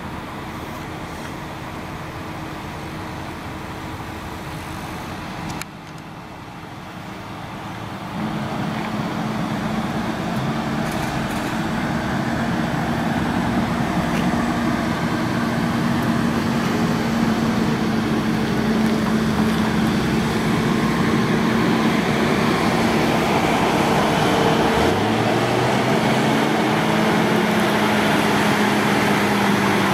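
Heavy truck's diesel engine running as it approaches, growing steadily louder from about eight seconds in, with its engine note climbing near the end, over general road traffic.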